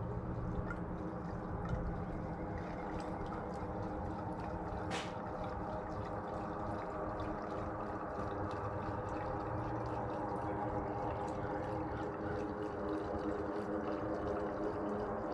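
Gasoline pouring from a fuel can into an Ariens snowblower's fuel tank, a steady continuous pour as the tank fills.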